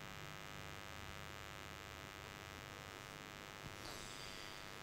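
Faint steady electrical mains hum with low room tone.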